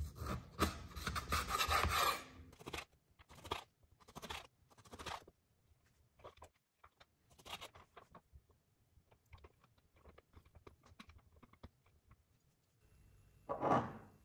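Chef's knife cutting through pancetta against a wooden cutting board: a quick run of cutting strokes, then slower single strokes, then only faint scattered ticks. A short louder sound comes near the end.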